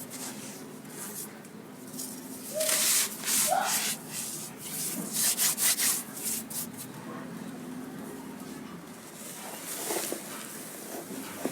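Crispy sand crunching and crackling as it crumbles into water, in uneven bursts, the loudest about three seconds in and again around five to six seconds in.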